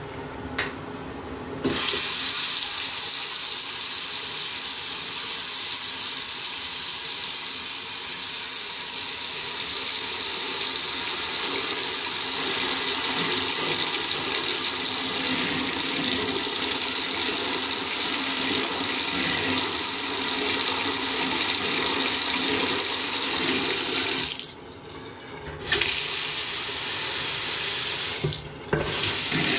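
Water from a bathroom faucet running steadily into a sink basin and splashing around the drain. It starts about two seconds in and drops away briefly twice near the end.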